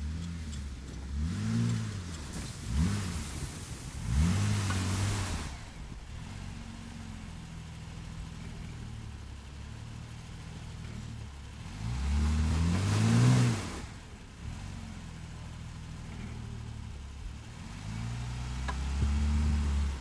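Jeep Wrangler engine revving in repeated bursts, pitch rising and falling, as the Jeep struggles through deep snow. The two loudest bursts, about four and thirteen seconds in, carry a loud rush of noise.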